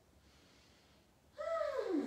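A woman's voiced sigh on an exhale, about 1.4 s in, gliding smoothly down in pitch for most of a second, after quiet room tone.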